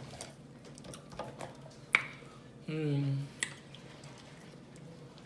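Mouth sounds of a person eating: several sharp smacking clicks, one louder about two seconds in, and a short low voiced sound under a second long nearly three seconds in.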